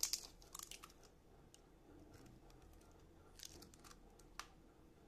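A few faint, sharp clicks and taps of kitchen things being handled at a plastic mixing bowl, a cluster in the first second and another about three and a half seconds in, over near silence.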